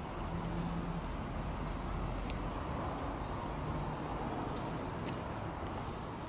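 Steady distant traffic rumble, with a small songbird's short trill falling in pitch near the start and a few faint high chirps later.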